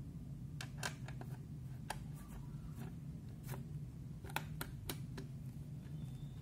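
Screwdriver turning the hard-drive mounting screws in the sheet-metal underside of a Dahua DVR case: a string of irregular light metallic clicks and scrapes, over a steady low hum.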